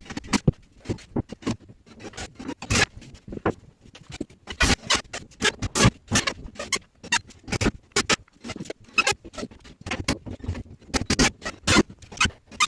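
Irregular light knocks and clicks, several a second with no steady rhythm.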